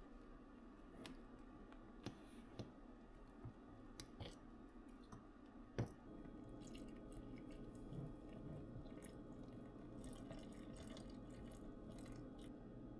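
Faint scattered clicks and light taps over a low steady hum, with one sharper tap a little before halfway.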